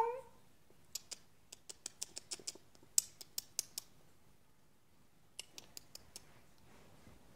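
The end of a cat's meow at the very start, then a run of about a dozen sharp light clicks over roughly three seconds, and about five more in a short run later.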